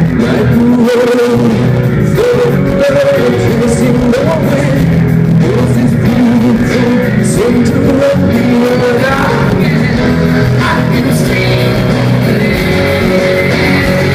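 Live rock band playing loud through a large hall's PA, with electric guitars, bass and drums and a singing voice over them.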